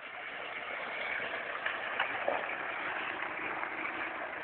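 Mitsubishi Pajero SUV driving slowly past through wet, muddy ground, its tyres sloshing in the water with the engine running low underneath, getting a little louder as it nears.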